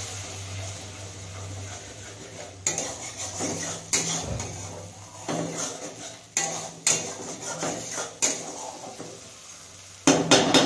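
A spatula stirring and knocking against a metal kadai of tomato masala, in irregular clacks about a second apart. The louder clacks come in a cluster near the end. The masala sizzles faintly underneath.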